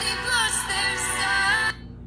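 A song with singing playing through a Huawei Y6P smartphone's built-in loudspeaker at raised volume. The music stops suddenly about 1.7 seconds in.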